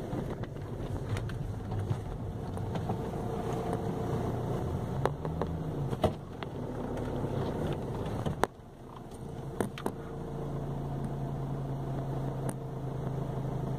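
A car driving on a rough dirt track, heard from inside the cabin: a steady engine and road hum with scattered knocks and rattles, the sharpest about eight and a half seconds in.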